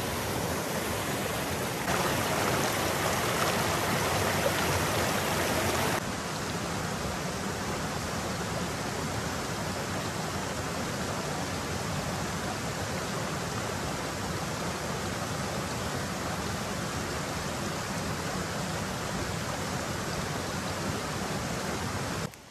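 Small mountain stream cascading over rocks, a steady rushing of water. It is louder for a few seconds near the start, then steps down to a slightly quieter, even rush.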